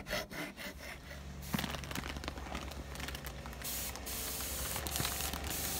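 A few quick rubbing strokes at the start, then a steady spraying hiss from about a second and a half in, which grows stronger in the upper range from the middle on, over a low steady hum.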